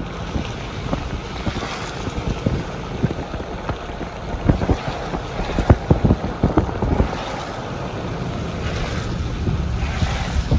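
Wind buffeting the microphone: a steady low rumble broken by irregular thumps.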